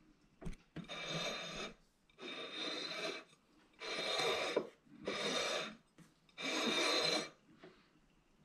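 Five rasping, rubbing strokes, each about a second long, at an even pace with short gaps between them.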